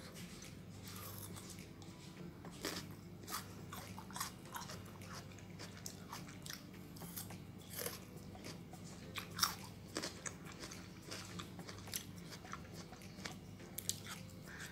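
Close-up biting and chewing of crisp Korean oriental melon (chamoe) flesh: many irregular wet crunches and mouth clicks, over a low steady hum.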